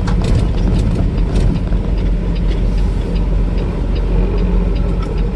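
Steady low rumble of a Peterbilt semi truck's diesel engine and road noise inside the cab while driving on a snow- and ice-covered street, with scattered light clicks and rattles.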